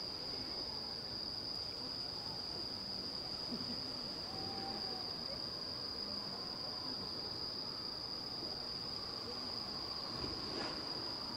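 Night insects, crickets, trilling in one steady high-pitched tone that does not break, over a faint low murmur of background noise.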